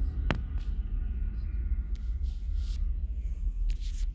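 Low, steady rumble of distant jet aircraft at the airport, heard through a hotel window. There is a sharp click about a third of a second in, and two short rubbing noises in the second half as the phone is handled against the window frame.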